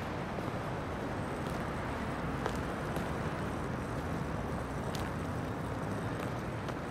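Steady noise of dense traffic on a multi-lane urban motorway, with a few faint clicks over it.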